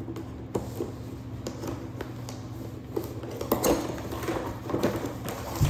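Packaging being opened and handled: scattered light clicks, knocks and rustles of a box and its contents.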